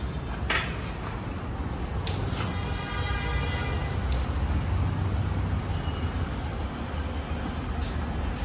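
Steady low machine hum, with a few short knocks and a brief squeak of about a second, about three seconds in, while cloths wipe the wet car.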